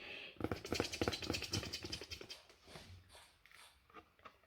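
Fingers scratching rapidly on the paper page of a picture book, a dense run of quick scraping strokes that starts about half a second in and dies away after about three seconds.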